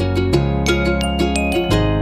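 Background music: a quick, even run of plucked-string notes over held bass notes that change twice.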